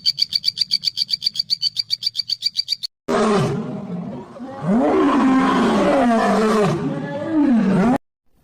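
A rapid, even trill of high clicking pulses, about ten a second, stops about three seconds in. A large animal then roars and growls for about five seconds in long calls that rise and fall in pitch, cutting off suddenly near the end.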